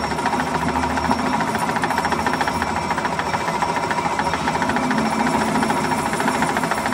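Metal lathe running with its tool bit facing the end of a steel truck axle: a steady machine noise with a fast, even rattle.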